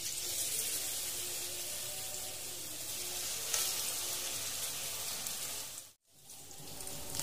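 Bakwan (vegetable fritter) batter sizzling in hot oil in a wok as spoonfuls are dropped in, a steady hiss that starts abruptly. The sizzle cuts out for a moment about six seconds in, then comes back.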